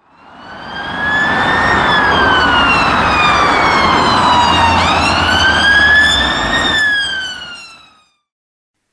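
Ambulance siren wailing in two slow rise-and-fall cycles, jumping back up in pitch between them, over a low rumble. It fades in over the first second and fades out near the end.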